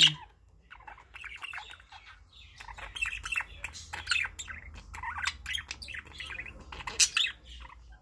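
Male budgerigars chattering: a run of quick chirps and warbles that grows busier after a couple of seconds, with one sharp, louder squawk near the end.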